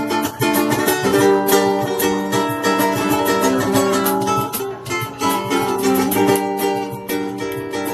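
Ukuleles strummed together, playing chords in a steady rhythm.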